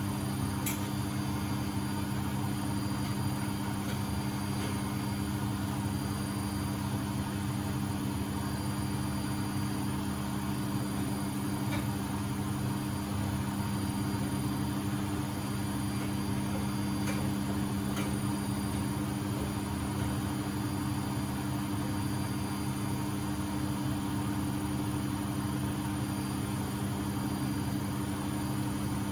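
Beko WMB71642W washing machine in its final spin at 1000 rpm: a steady hum from the drum and motor held at full speed.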